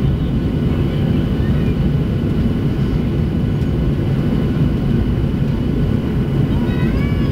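Steady cabin noise inside a Boeing 737-700 airliner in flight: a deep rumble of its CFM56 engines and the air rushing past the fuselage, with a faint, steady high whine.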